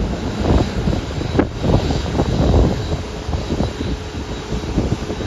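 Airbus A380-800's four Rolls-Royce Trent 900 turbofans running at taxi power: a steady jet rumble with a faint high whine, broken by gusts of wind buffeting the microphone.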